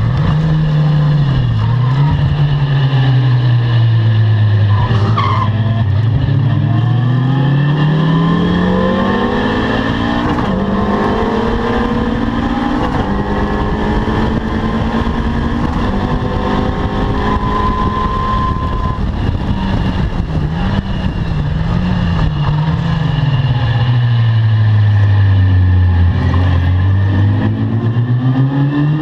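Caterham R300 sports car engine at full race pace, its pitch climbing through the revs with stepped gear changes, then falling low under braking and rising again as it accelerates out.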